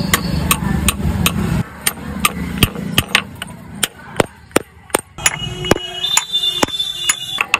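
Hammer striking a steel chisel-punch against a sandstone slab, a sharp metallic tap about three times a second, pecking dots into a sil batta grinding stone to roughen its grinding face. A low rumble sits underneath for the first second and a half.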